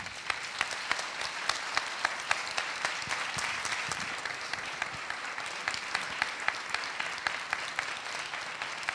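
Audience applauding steadily, with individual sharp claps from someone close by standing out above the general clapping.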